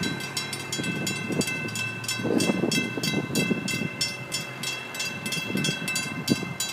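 Railroad grade-crossing warning bell ringing steadily, about four strokes a second, with the gates down. An uneven lower rumble sits beneath it, loudest a couple of seconds in.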